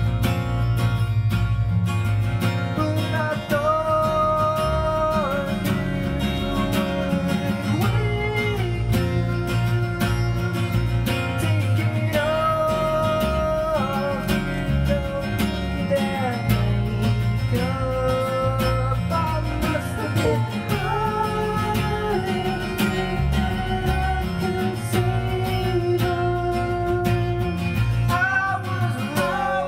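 Live acoustic guitar and electric bass playing a song, with a melody of long held notes that change about every four seconds.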